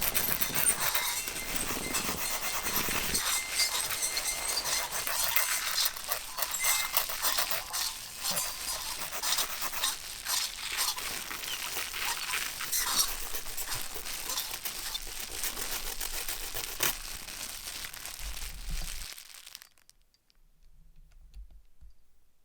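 Continuous dense crinkling and crackling, many small clicks packed together, which thins out and stops a few seconds before the end.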